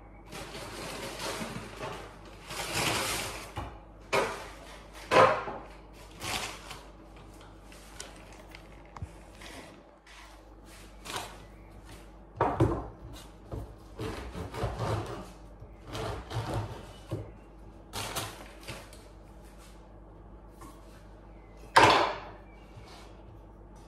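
Kitchen counter clatter: a run of irregular knocks, clunks and rustles as things are handled on the counter, with one sharp bang near the end.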